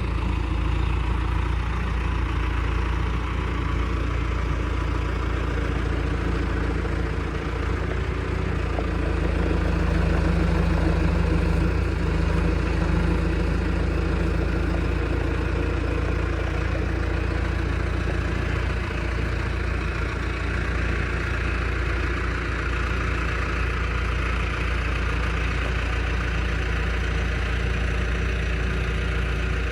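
Truck running steadily, heard from inside the cab: a low engine and road drone that swells slightly about ten seconds in.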